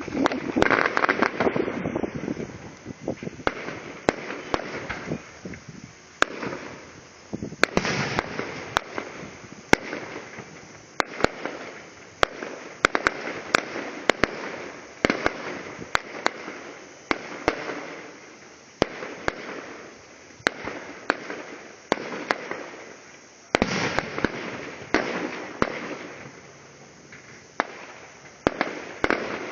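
Fireworks going off in a steady run: sharp bangs every second or so, each followed by crackling and a fading echo.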